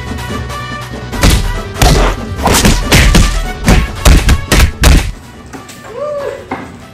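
Hockey-stick blows landing on a person: a rapid, irregular series of about a dozen heavy thumps over background music, stopping about five seconds in. A short vocal cry follows near the end.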